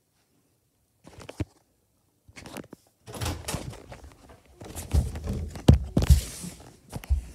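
Phone being handled and rubbed against clothing: rustling and bumping noise with scattered knocks, starting about a second in, growing busier, and with a few heavy thumps near the middle.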